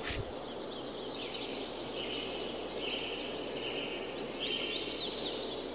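Outdoor countryside ambience: a steady background hiss with birds chirping in short repeated calls through the second half, and a brief click at the very start.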